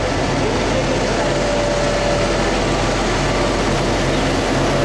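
Kalka–Shimla narrow-gauge toy train running, a steady loud rumble of wheels and engine with a faint steady hum.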